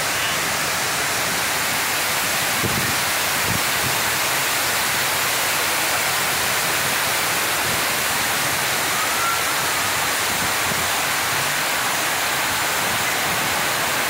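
Large man-made waterfall fountain: water sheeting down a grooved wall and crashing into the foaming basin below, a loud, steady rushing and splashing.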